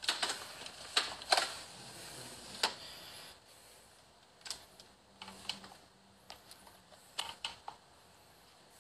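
Irregular small clicks and taps of a smartphone being handled and moved about, several close together in the first three seconds, then fewer and fainter.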